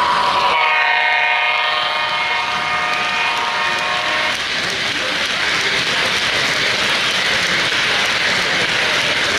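O-gauge model train's onboard sound system sounding a long multi-tone train horn about half a second in, held for about four seconds and cut off sharply. After it, the steady running rumble and clatter of the model passenger cars rolling on the track.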